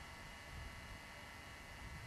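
Quiet background: a steady hiss with a faint, uneven low rumble, and no distinct sound.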